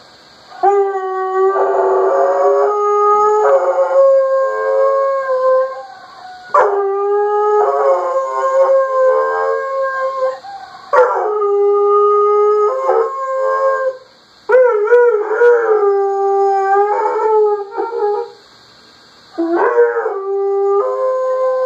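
A dog howling in five long, drawn-out howls with short breaks between them, some held steady and some wavering in pitch. The howling is set off by a phone alarm.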